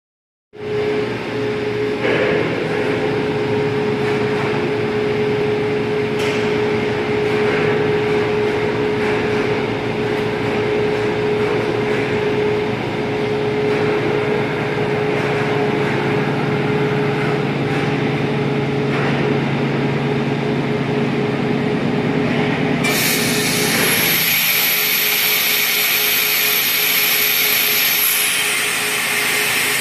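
Toshiba TMD 13 CNC vertical boring mill running, a steady machine hum with one held tone. About three-quarters of the way through, a high whine cuts in as the hum changes character, and the whine drops a step in pitch near the end.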